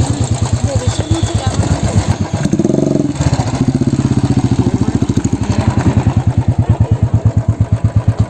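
Royal Enfield single-cylinder motorcycle engine idling with a steady, even thump of about eight to ten beats a second. A brief pitched sound cuts in about three seconds in.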